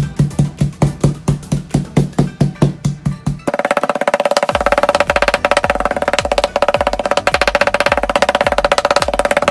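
Metal meat mallet pounding chicken breast through plastic wrap on a plastic cutting board: a run of regular thumps about four a second, turning into a denser, continuous clatter about three and a half seconds in. Background music plays throughout.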